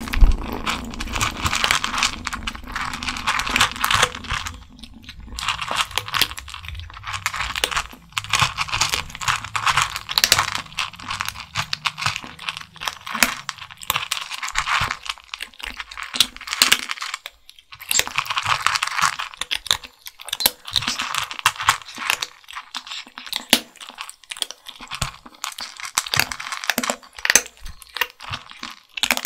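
Two kittens crunching dry kibble: a dense run of crisp, loud crunches, broken by short pauses about five seconds in and again a little past halfway.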